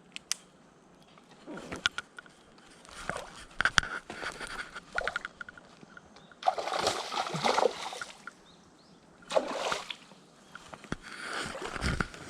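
Water splashing and sloshing in irregular short bursts, with a few sharp clicks between them.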